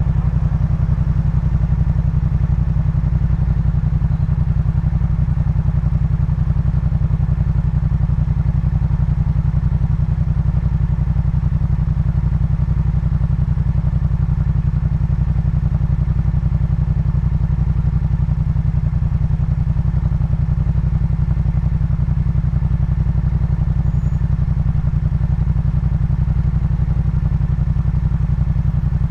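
2018 Yamaha MT-07's parallel-twin engine running through a Jeskap K4 full exhaust system, loud and deep, holding a steady engine speed with no revving.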